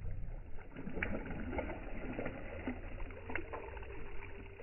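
Water sloshing and splashing at the rocky edge of a reservoir as a hand dips in and flings water out, heard as faint scattered splashes and drips over a low steady rumble.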